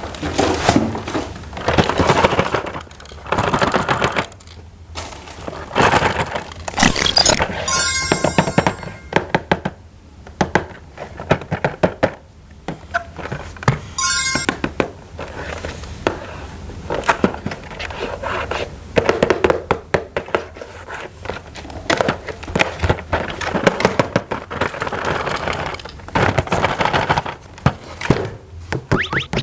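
Plastic toy parts being handled and assembled: a steady run of clicks, knocks and thunks with rattling, and two brief jingling rings, at about eight and fourteen seconds.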